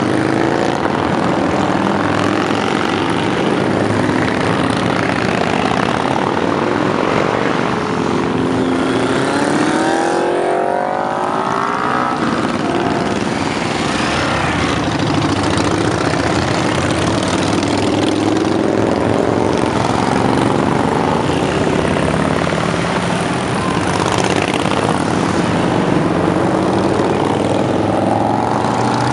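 A procession of motorcycles, mostly Harley-Davidson V-twin cruisers, riding past one after another: a continuous engine rumble in which each bike's note swells and fades as it goes by. About ten seconds in, one engine's pitch rises noticeably as it accelerates.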